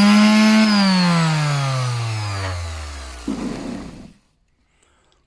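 Handheld electric sander's motor running at full speed, then switched off and winding down, its whine falling steadily in pitch over about three seconds. A short rattle as it comes to rest.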